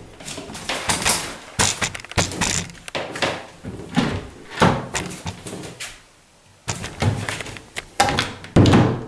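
Door being closed against its frame and its handle worked, with the tubular latch clicking and the door knocking shut, a dozen or so separate clicks and thunks with a short pause a little after halfway. The newly repaired latch works freely, with little rattle.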